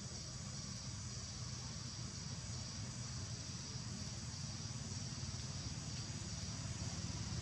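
Steady high-pitched chorus of forest insects (crickets or cicadas), with a low hum underneath that grows a little louder near the end.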